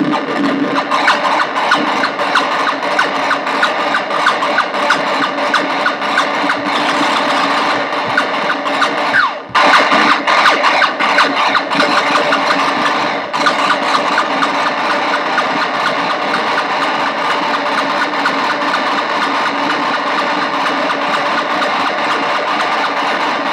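Analog synthesizer noise improvisation: an Arturia MicroBrute and a Casper Electronics Nova Drone patched into each other, making a dense, buzzing noise drone played through a bass practice amp. It cuts out briefly about nine and a half seconds in and dips again around thirteen seconds.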